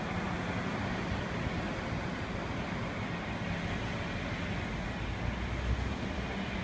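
A steady rumble of road traffic mixed with a rubber-tyred Bukit Panjang LRT train running off along its elevated concrete guideway.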